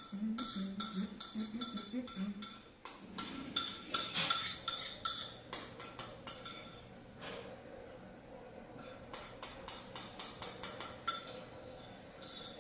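Metal spoon clinking and scraping against the bowl as the last of the soup is scooped out: quick runs of ringing clicks, a long spell over the first seven seconds and a second burst a little past the middle. A low hum sounds under the first couple of seconds.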